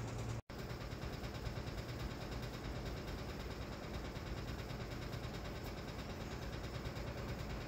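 A machine running steadily, a constant mechanical hum with a cut-off for a moment about half a second in.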